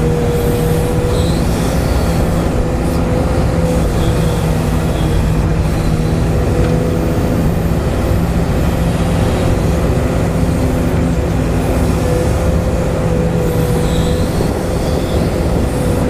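Huina 580 RC hydraulic excavator running steadily as its arm and quick coupler move: a constant low machine drone with a steady whine on top.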